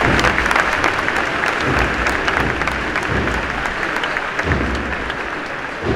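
Large crowd applauding a procession float, loud at first and slowly dying down, with a few low thumps underneath.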